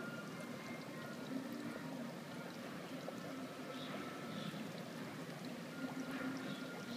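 Steady trickling of water, with a few faint high tones and chirps over it.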